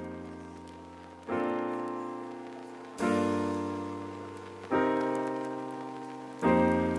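Background music: slow piano chords, a new chord struck about every second and a half to two seconds and each left to ring and fade.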